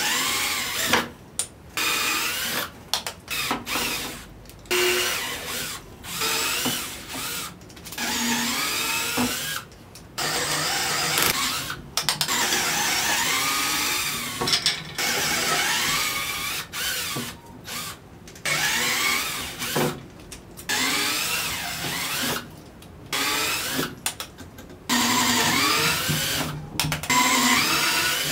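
Electric drill running in a dozen or more short bursts of a second or two, with brief pauses between, its pitch rising and falling within each burst. This is in keeping with drilling dowel holes in pine.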